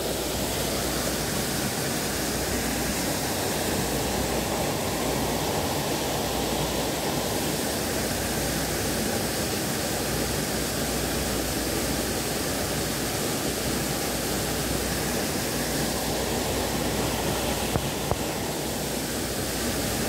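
Steady rushing of a waterfall: an even, unbroken roar of falling water.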